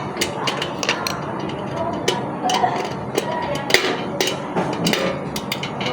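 Irregular clicks and knocks of ceiling-fan parts and packaging being handled during unboxing, over a steady background hiss.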